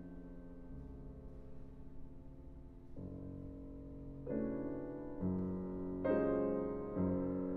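Grand piano played solo in a slow improvisation: a held chord dies away over the first three seconds, then new chords come in about once a second, growing louder.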